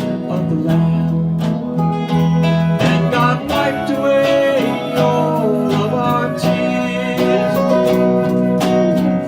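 Live band playing an instrumental passage of a country-flavoured song: strummed acoustic guitar with a gliding lead melody over sustained low notes.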